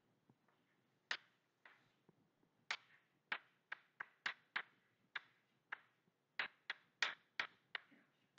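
Chalk on a blackboard as an equation is written: a quick, irregular run of sharp taps with short scratches, sparse at first and then about two to three taps a second.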